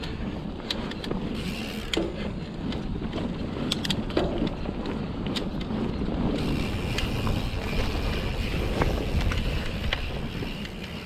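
Mountain bike riding down dirt singletrack: tyres rolling with a steady rumble, scattered clicks and rattles from the bike over bumps, and wind on the action-camera microphone.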